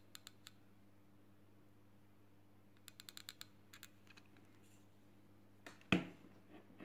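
Light, sharp clicks, a few at the start and a quick run of about six around three seconds in, then one louder knock about six seconds in, over a steady low electrical hum.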